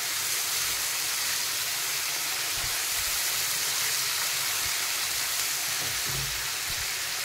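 Chopped tomato and onions frying in oil in a kadhai, a steady sizzle as the tomato cooks down until soft. A few soft low knocks come from the spatula stirring.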